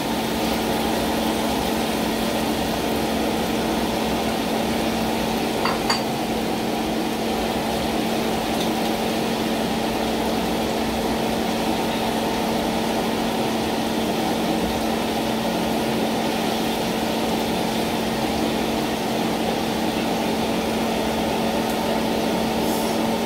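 Tilapia curry simmering in a frying pan on a gas stove, under a steady hum and hiss. A single light clink comes about six seconds in.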